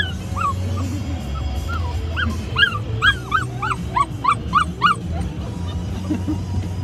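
Great Pyrenees puppies whining and yipping in short, high-pitched cries, with a quick run of about ten between two and five seconds in. Under them runs the steady low drone of the moving vehicle's cabin.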